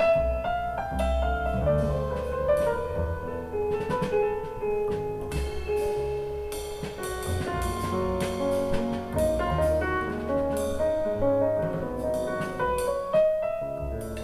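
Instrumental music with a melody line over bass and drums, played back through Yamaha NS1000 loudspeakers.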